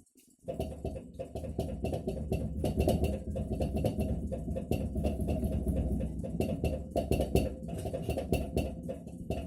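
Atlant refrigerator knocking: a rapid, irregular clatter of knocks over a low steady hum, starting about half a second in. It is a fault in a new fridge, which the owner says knocks only in the evening hours, even on a voltage stabiliser.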